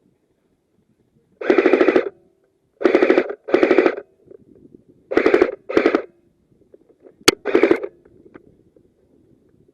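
Airsoft gun firing on full auto in six short bursts, each about half a second, with one sharp single crack just before the last burst.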